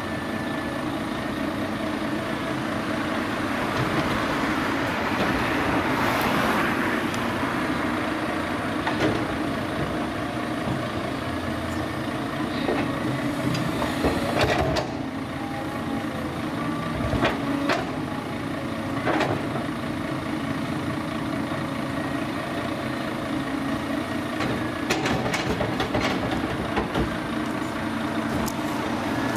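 Diesel engines of a Cat 323D tracked excavator and a tipper truck running steadily, with a hiss and several sharp knocks and clatters as the excavator's bucket works soil and stones into the truck.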